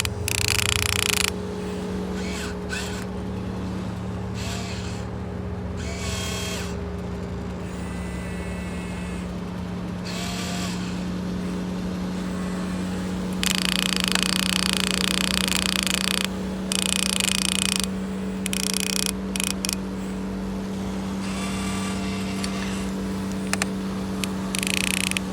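Electric motors and gearboxes of a Huina 1592 RC excavator whining in repeated bursts as the arm and bucket are worked, the longest run lasting about three seconds, while the machine struggles to dig. A steady low hum runs underneath.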